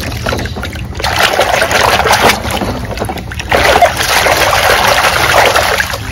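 Soapy water sloshing and splashing in a tub as a hand scrubs a plastic toy mask under the surface, in two spells of about two seconds each.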